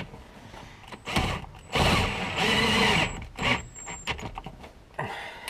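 Ryobi cordless drill with a deep socket spinning rear strut top-mount nuts on in several short runs, the longest about two to three seconds in, the motor speeding up and slowing down. The nuts are being run down snug, not tightened.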